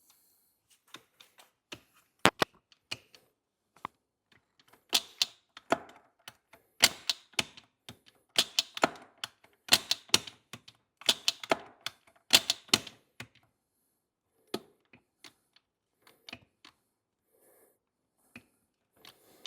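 Quick metallic clicks in short clustered runs, several runs over a few seconds, with scattered single clicks before and after: hand work with tools and parts on a motorcycle's shift shaft and foot shift lever.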